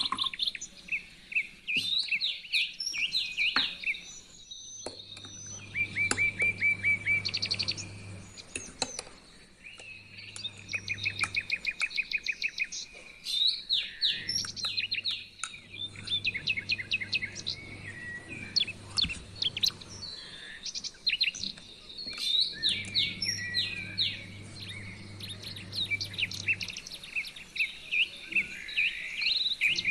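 Small birds chirping and twittering almost without pause, with fast runs of repeated chirps and several calls overlapping.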